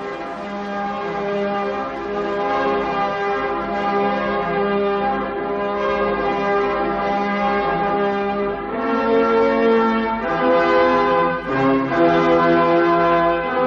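Bells ringing, their tones overlapping into a full, held chord that swells in loudness. New notes come in about nine seconds in and again shortly after.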